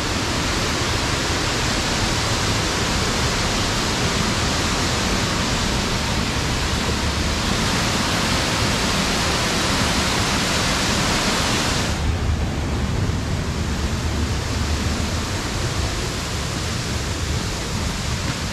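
Steady rushing of water from a cave stream. About twelve seconds in it gives way to a duller, lower rumble of wind on the microphone.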